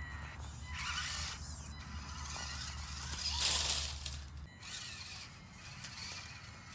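Small brushed motor and gear drivetrain of an SCX24 mini RC crawler whining in short bursts as it drives, the loudest a rising whine a little past the middle.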